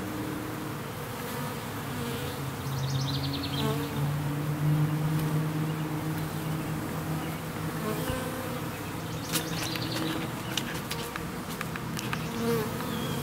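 Honey bees buzzing close by, a steady drone whose pitch wavers as individual bees fly in and out, with a few sharp ticks about nine seconds in.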